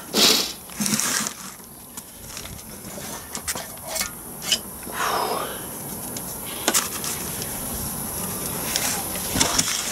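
Scattered knocks, clunks and scrapes of a heavy Land Rover LT230 transfer box casing being heaved and shifted about on the floor.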